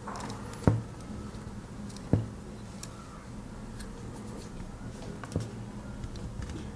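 Small clicks and knocks from handling a Victorinox Compact Swiss Army knife and its removable pin. Three sharper knocks, two in the first couple of seconds and one about five seconds in, with faint ticks between, over a low steady hum.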